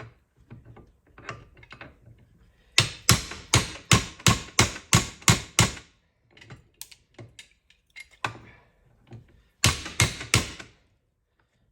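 Hammer striking a steel U-joint yoke held in a vise, driving out the old U-joint bearing cups: a quick run of about ten sharp blows roughly three a second, a few lighter taps, then another burst of four blows near the end.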